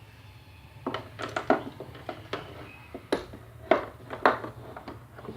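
Irregular clicks, knocks and light clatter of hard tools and plastic being handled, starting about a second in.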